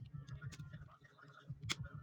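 Computer keyboard being handled during cleaning, with two sharp key clicks over a low rubbing rumble.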